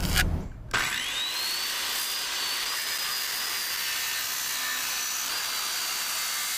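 Handheld circular saw starting up and cutting through a 1-inch sheet of white starboard (marine HDPE plastic). Its high whine climbs quickly to speed just under a second in, then holds steady through the cut.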